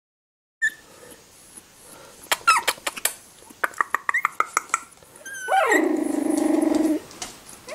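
Three-week-old puppies squeaking, with a few short high yips and then one drawn-out whine that drops in pitch at its start and holds for about a second and a half. Runs of quick sharp clicks come before the whine.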